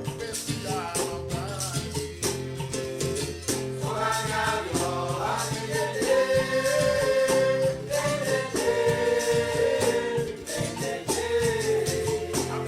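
A song: a sung melody with long held notes over plucked strings and a steady percussion rhythm.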